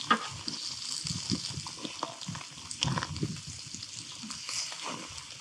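Small meat medallions sizzling on a hot grill: a steady hiss with scattered sharp pops and crackles, one sharp pop just after the start.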